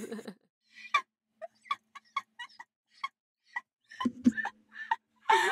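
Quiet laughter in short broken bursts, a few a second, turning to fuller voiced giggles near the end.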